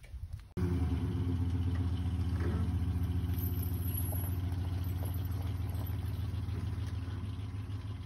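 Pickup truck engine running at idle, a steady low hum with a faint even pulse that starts abruptly about half a second in.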